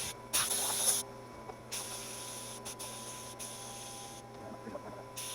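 Compressed air hissing from a small air compressor's hose nozzle in short blasts: a strong one about half a second in, a longer, fainter one after, and a brief one near the end.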